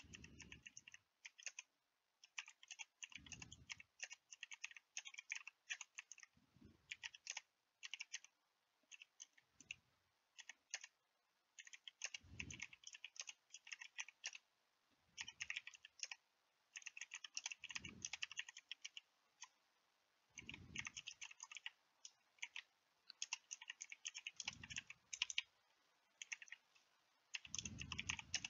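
Faint computer keyboard typing in quick runs of keystrokes with short pauses between them, and a soft low thump every few seconds.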